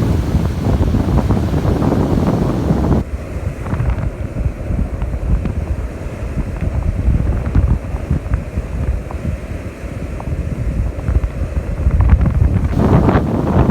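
Wind buffeting the microphone in a heavy low rumble, over the wash of surf. The higher hiss of the surf cuts off abruptly about three seconds in and comes back near the end.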